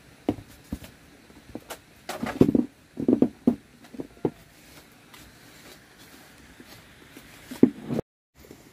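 Scattered knocks and clatter of objects being handled, in small clusters about two, three and seven and a half seconds in; the sound drops out for a moment near the end.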